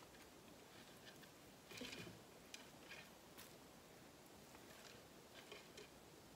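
Near silence with faint scattered rustles and light ticks, the most distinct about two seconds in: leafy greenery stems being handled and tucked around a lamp base on a cake-stand pedestal.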